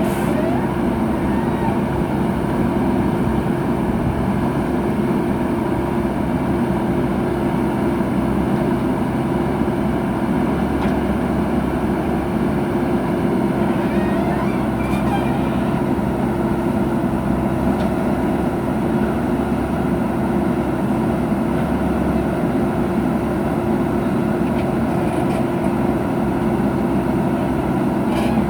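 Heavy diesel engine of earthmoving machinery running steadily with no change in pitch.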